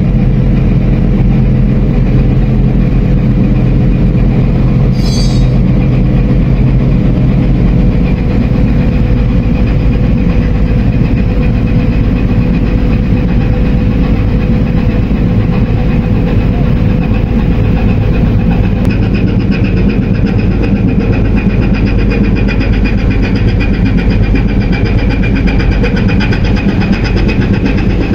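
Ship's heavy diesel engines running steadily under way. The pitch shifts about a third of the way in, and a higher whine joins about two thirds of the way through.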